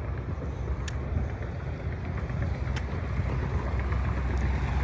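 Steady low outdoor rumble and hiss of background noise, with two short clicks, one about a second in and one near three seconds.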